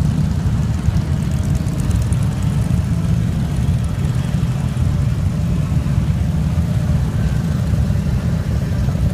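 A procession of cruiser and touring motorcycles riding slowly past in a line, their engines a steady, continuous low rumble.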